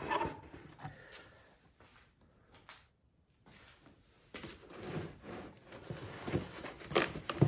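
Plastic pocket hole jig being handled and moved on a work surface: scattered clicks, knocks and light rustling that begin about four seconds in and grow busier toward the end.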